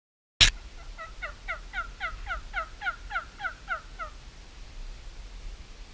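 Turkey yelping: a run of about a dozen short, falling, nasal notes at about four a second, stopping near the end. A sharp click comes just before, at the start.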